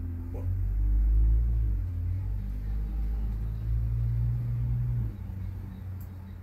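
A deep, steady low rumble that swells about a second in and drops away sharply about five seconds in.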